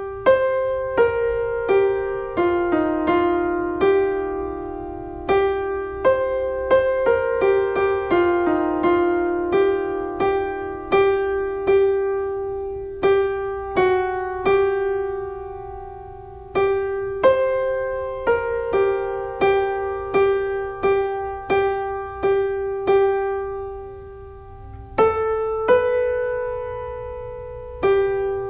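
A single melody line picked out on piano, one struck note at a time at a slow, even pace, in phrases with short breaks between them. It is the second soprano part of a choral benediction, played alone for learning the part.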